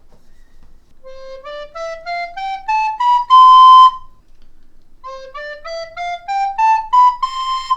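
Plastic soprano recorder played up a one-octave scale from low C to high C, eight notes, twice; the top note of the first run is held longest and loudest.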